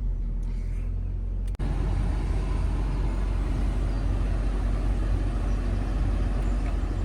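The engine of an old Ford Focus hatchback idling steadily just after a cold morning start, with a momentary break about a second and a half in.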